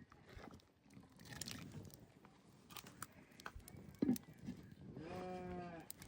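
Livestock sounds: scattered clicks and knocks, with a sharp knock about four seconds in, then a single held call lasting just under a second near the end.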